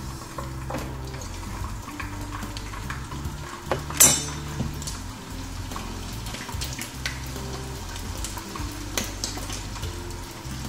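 Cooking clatter at a kazan on the stove: metal utensils clinking against the pot over a faint frying sizzle of fat-tail fat rendering in oil, with one sharp clank about four seconds in. Soft background music with a low bass line plays underneath.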